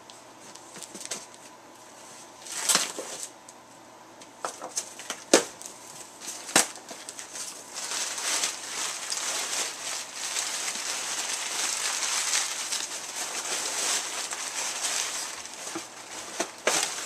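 Cardboard shipping box being opened: a few sharp snaps and rips as the taped flaps are pulled apart, then, from about halfway, a long spell of crinkling and rustling as crumpled packing paper is pulled out.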